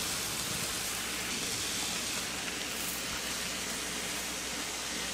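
Thick-cut pork chops sizzling steadily on a hot Blackstone flat-top griddle.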